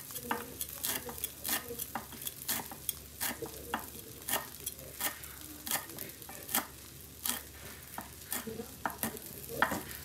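A broad kitchen knife slicing lime leaves into fine threads on a wooden chopping board: a steady run of short knife taps against the board, about one to two a second.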